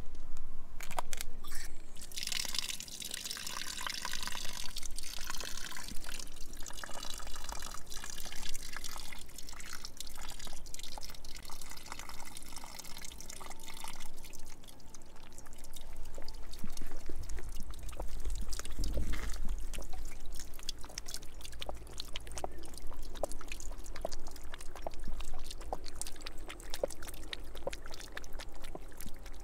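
Thin stream of water running from an outdoor drinking-fountain tap and splashing onto the drain grate below, louder in the first half. Through the second half come many quick wet clicks as a cat laps at the falling stream.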